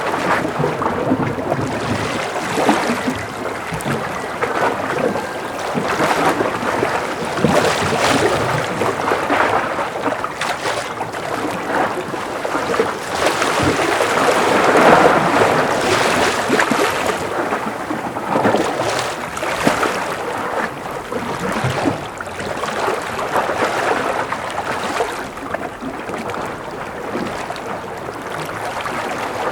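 Gentle ocean waves washing against a breakwater, swelling and easing in slow surges, loudest about halfway through.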